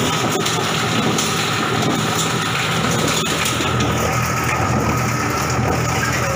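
Coconut shell and husk grinder machine running under load, grinding material to powder: a steady mechanical drone with a high whine and a few sharp ticks from hard pieces in the mill.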